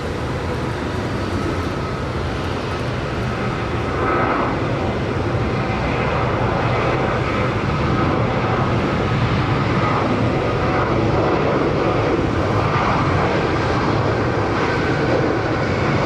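Boeing 737 jet engines at full takeoff thrust during the takeoff roll: a loud, steady jet noise with a faint whining tone. It grows louder about four seconds in and then holds.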